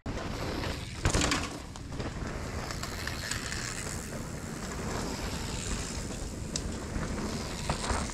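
Mountain bike riding down a dirt trail: wind rushing over the microphone and steady trail noise, with a few knocks, the loudest about a second in.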